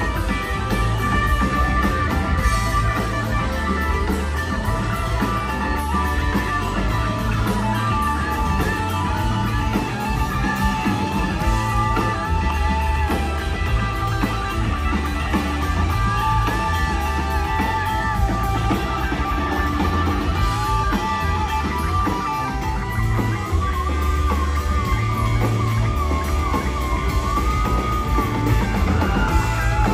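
Live rock band playing an instrumental section, with electric guitars playing sustained lead lines that bend and waver over bass and drums.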